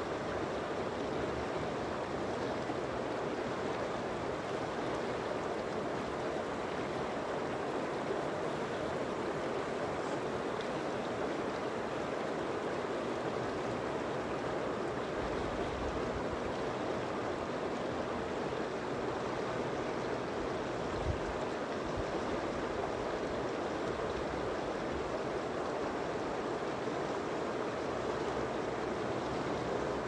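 Shallow river running over and around rocks: a steady, even rushing of water.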